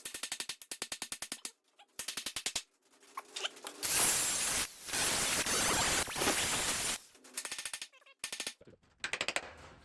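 Pneumatic air hammer with a chisel bit firing in short rapid rattling bursts against the head of a steel frame rivet. It runs in one longer continuous stretch in the middle, chipping pieces of the rivet head off.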